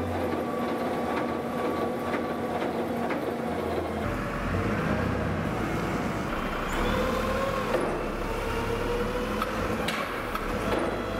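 Wheel loader running a REMU screening bucket: steady engine and hydraulic machinery noise as the bucket's rotating discs sift compost, with a whine that slides up and down in pitch in the second half.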